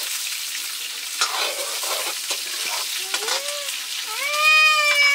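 Pork curry sizzling in a pan as it is stirred, with scraping and clicking against the pan. About three seconds in comes a short rising high call, and a second later a long, loud high call that falls slightly in pitch.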